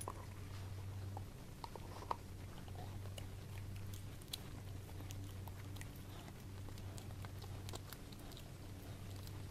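A dog gnawing a fresh beef bone: irregular small clicks and scrapes of teeth on bone. A low steady hum runs underneath.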